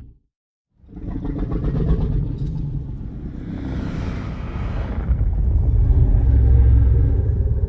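A recreated sound effect of the 2014 MonsterVerse Godzilla: one long, deep rumbling growl that starts about a second in, swells to its loudest near the end, then fades.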